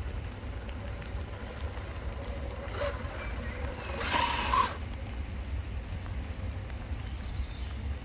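A steady low rumble, with a short whirring burst from the RC crawler's drivetrain about four seconds in, as the truck climbs over the crest of a wooden ramp. A fainter burst comes a little before that.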